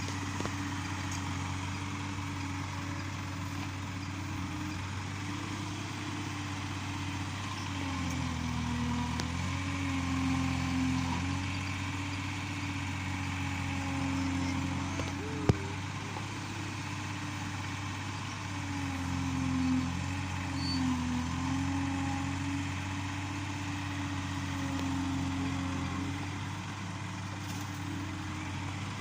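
Yanmar B37 mini excavator's diesel engine running steadily, its pitch dipping briefly twice. A single sharp click about halfway through.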